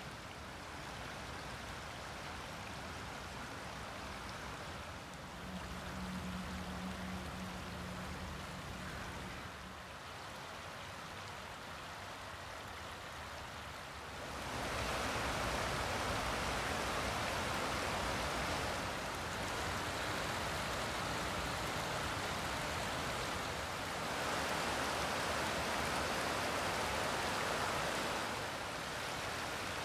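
Forest creek water running over rocks and gravel, a steady rushing hiss that gets louder and fuller about halfway through as the flow is higher, with small shifts in level at each change of clip.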